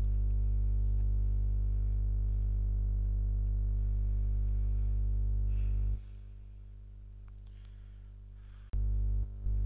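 Steady low electrical hum with a buzz of even overtones. It drops much quieter about six seconds in and comes back abruptly near the end.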